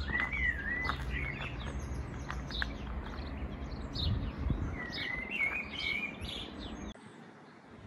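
Songbirds singing and chirping, with two longer warbling phrases among short chirps, over a steady low rumble. Everything drops away suddenly about seven seconds in, leaving only faint background.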